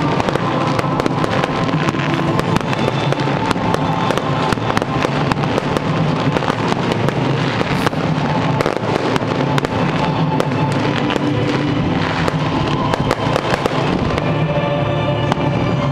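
Fireworks display: many shells bursting and crackling in quick succession, with music playing under them.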